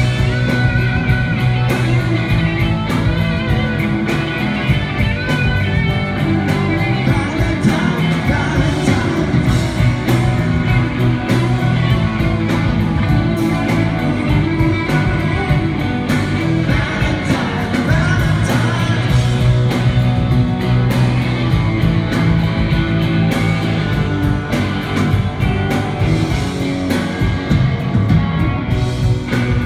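Live rock band playing a song: electric guitar and drums with a male lead singer, loud and continuous.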